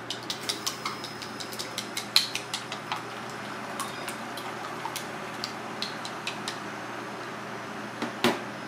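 Wooden chopsticks beating egg in a small bowl, clicking against the bowl in quick light taps: about three or four a second at first, then more sparsely, with one louder knock near the end. A steady hum runs underneath.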